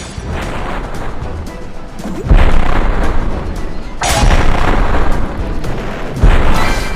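Loud music with heavy booming bass hits, three of them about two seconds apart, over a busy noisy bed.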